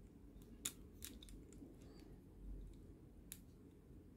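Small plastic transforming figure being handled: its joints and parts click as they are moved and snapped into place, several sharp clicks under a second in and one more a little past three seconds, over a faint low hum.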